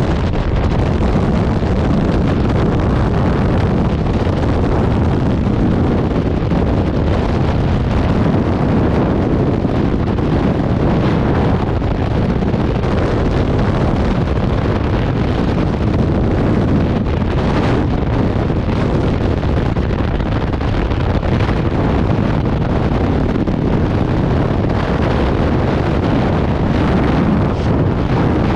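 Skydiving freefall airflow blasting over the camera's microphone: a loud, steady wind rush, heaviest in the low end.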